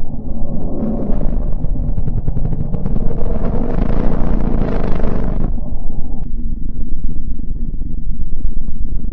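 Low, rumbling noise of a sonified 'planet sound': plasma-wave data from space converted to audio. A brighter hiss swells in about a second in and drops away after about five and a half seconds.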